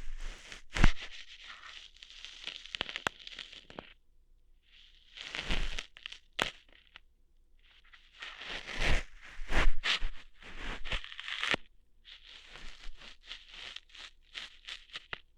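Ear-hair plucking sounds close on an ASMR microphone: crackly tearing and rustling with sharp clicks, coming in four bursts separated by short quiet gaps.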